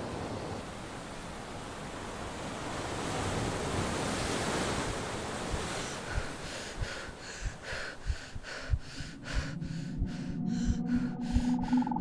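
Ocean waves washing and swelling, giving way about halfway through to a quickening series of short rhythmic pulses with low thuds beneath them.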